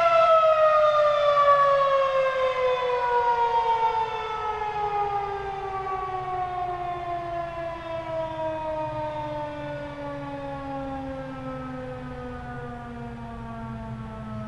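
Federal Signal 2001-SRN outdoor warning siren winding down at the end of its one-minute steady alert: its tone glides steadily downward in pitch, fading over the first few seconds and then sounding on more quietly as the rotor slows.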